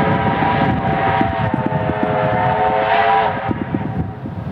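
Steam whistle of Victorian Railways J class locomotive J549, blown long and steady as the train approaches. It cuts off about three seconds in, after a brief lift in pitch, over a quick rhythmic beat from the working engine.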